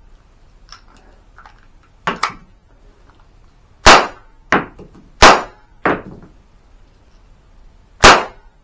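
A blowback cap-firing C96 Red9 model pistol firing three loud bangs: about four seconds in, about five seconds in, and near the end. Each bang is followed by a quieter clack about half a second later. A lighter pair of clacks comes about two seconds in.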